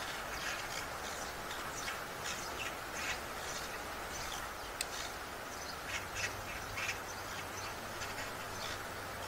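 Birds calling in short, irregular chirps over a steady outdoor hiss, with a single sharp click about halfway through.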